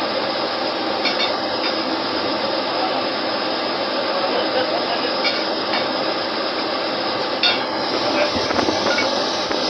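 Steady, loud drone of drilling rig machinery on the rig floor, with a few sharp metal clanks: one about a second in, a pair around the middle and another near the end.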